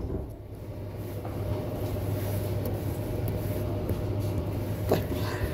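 Steady low background hum with a fainter higher tone over it, and one short click about five seconds in.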